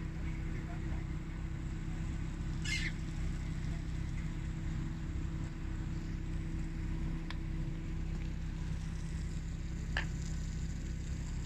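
Steady low machinery hum with a constant tone running under it. There is a brief hiss about three seconds in and a single sharp click near the end.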